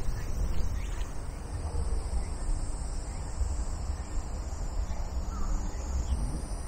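Crows cawing now and then over a steady high-pitched drone of insects, with a low steady rumble underneath.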